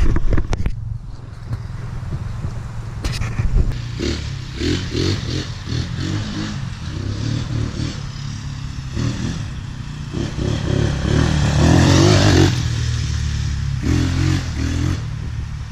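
Tornado 250cc Chinese quad's engine revving up and down as it is ridden around a dirt track, loudest about twelve seconds in. A few sharp clicks near the start.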